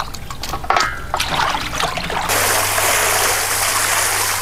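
A few knocks of goat trotter pieces against a metal pot. Then, about two seconds in, water starts pouring onto the pieces in a steady, splashing stream.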